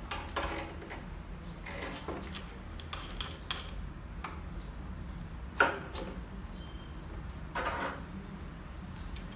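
Irregular metal clicks and clinks of a drill bit being fitted into a three-jaw drill chuck on a magnetic drill by hand, with a few sharper knocks about a third, halfway and three-quarters of the way through.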